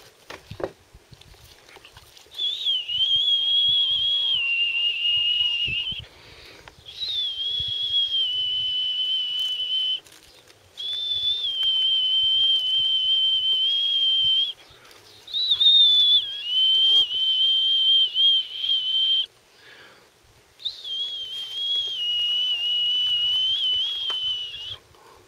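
A person whistling five long held notes, each lasting three to four seconds with short gaps between, each starting a little higher and settling slightly lower with a slight waver.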